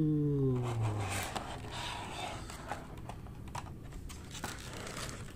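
Clear plastic blister tray being handled, giving scattered light clicks and taps. In the first second a person's voice glides down in a short hum.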